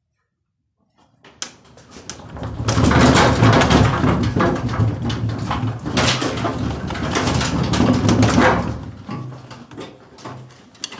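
Indesit washing machine drum spinning on worn-out bearings, making a loud smashing racket of dense rattling and knocking over a low rumble. It builds up over about a second and a half, holds for about six seconds, then dies away near the end.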